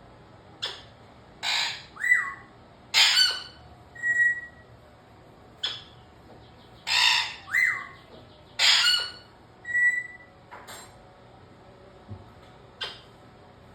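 A pet bird making a string of varied calls with short pauses between them: harsh squawks, some sweeping down or up in pitch, short whistled notes and a few clicks.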